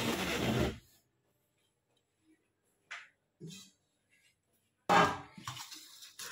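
A short noisy burst in the first second, then near silence. About five seconds in, a steel ladle scrapes and clinks through soaked green moong dal in a stainless-steel bowl.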